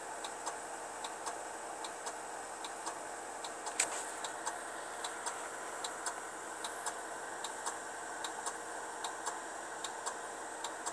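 Truck's flasher relay ticking steadily, a pair of clicks about every 0.8 s, over a steady low hum, with one louder click a little under four seconds in.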